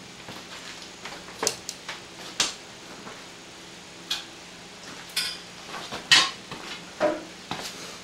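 Scattered sharp metallic clinks and knocks, about half a dozen separate hits, the loudest about six seconds in.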